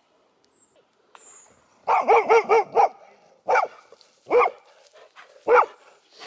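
A dog barking: a quick run of about five barks about two seconds in, then three single barks roughly a second apart.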